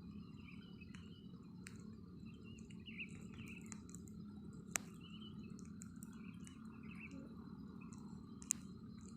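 Faint morning chorus of many small birds chirping, over a steady high insect drone. Two sharp clicks stand out, one about halfway through and one near the end.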